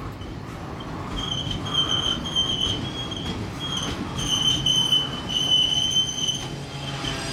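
Double-stack intermodal well cars rolling past, their wheels giving a high, wavering squeal from about a second in until shortly before the end, over the low rumble of the train.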